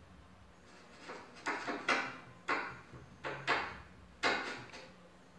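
A series of about seven knocks and clicks, each dying away quickly, from handling a small homemade FM transmitter board and its wires on a wooden table, over a faint steady low hum.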